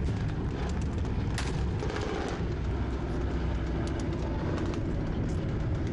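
B-24 Liberator's four radial piston engines droning steadily as the bomber flies low past.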